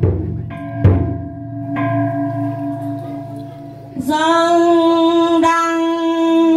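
Traditional ceremonial ritual music: percussion strikes near the start and about a second in, with ringing tones dying away, then from about four seconds a long held note with many overtones.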